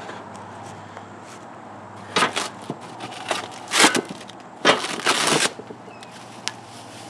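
Plastic packaging and cardboard rustling and crinkling as parts are handled and pulled out of a shipping box, in short irregular bursts about two and four seconds in and a longer one around five seconds.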